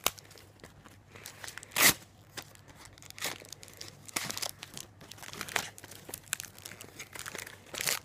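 Foil wrapper of a Pokemon card booster pack crinkling and crackling in the hands in irregular short bursts, with one louder crackle about two seconds in.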